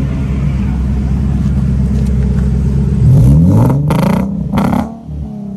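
Car engine running at the exhaust, then revved sharply two or three times about three seconds in, the revs falling away near the end. The car is running badly with a misfire.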